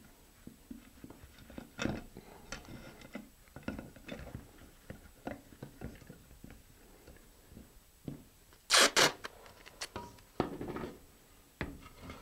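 Hands handling a rocket's shock cord and fabric parachute protector on a cutting mat: soft rustles and rubbing, with two short, loud rasps close together about nine seconds in.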